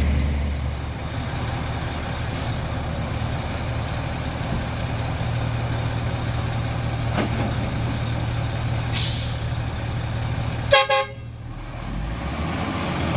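Heavy diesel engines running steadily under load, with a short hiss about nine seconds in and a brief horn toot near the end.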